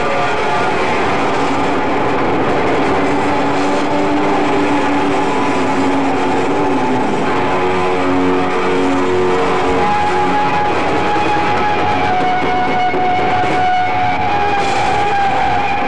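Heavy metal band playing live at full volume: distorted electric guitar holding long notes over a dense wash of drums and cymbals.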